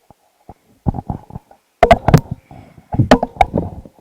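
Irregular knocks and bumps, loudest in two short clusters about halfway through and three-quarters through, with soft rumbling between.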